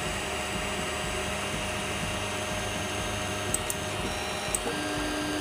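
SUNLU S8 3D printer running its fans while its motors carry the print head back to its home position during bed levelling: a steady whir with several steady tones. A few faint ticks come a little past halfway, and a new steady hum comes in near the end.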